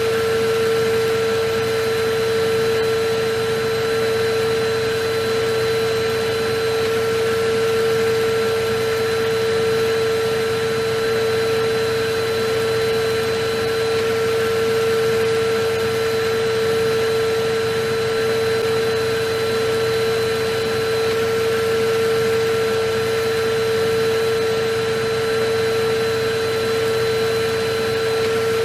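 Vacuum cleaner running steadily: a constant rush of air under a steady motor whine, swelling and easing slightly every couple of seconds.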